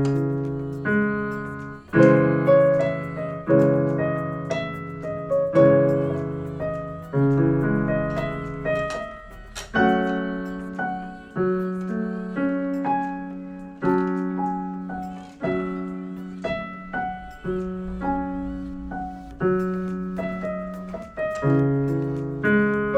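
Casio CTX-5000 electronic keyboard playing a slow piece, with chords struck every second or two over low bass notes and each chord fading after its strike. It is heard through a GoPro Hero 11's built-in microphones.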